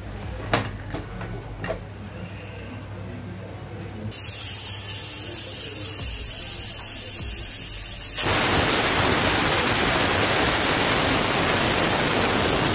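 Aluminium pressure cooker on a gas burner: a couple of light clicks as the lid is handled, then steam starting to hiss about four seconds in, and from about eight seconds a loud, steady rush of steam venting past the whistle weight, the cooker's whistle that tells the moth beans have come up to pressure.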